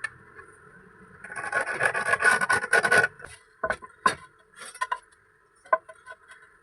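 Quick rasping scrapes, like a file worked over metal, for about two seconds, then a handful of separate sharp clicks and knocks.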